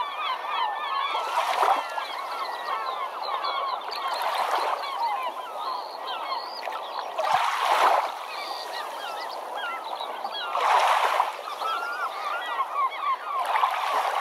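Many birds calling at once, a dense chatter of overlapping short squawks and chirps, with a rush of noise swelling and fading about every three seconds.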